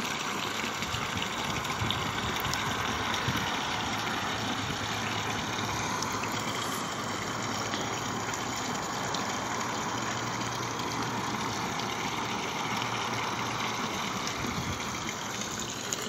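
Garden pond water feature: water pouring steadily from the feature into the pond, a continuous splashing rush, with a faint low hum underneath through the middle.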